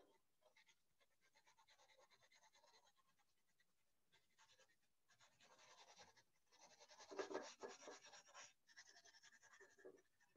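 Faint pencil scratching on sketchbook paper in quick short strokes, with a louder run of strokes about seven to eight and a half seconds in.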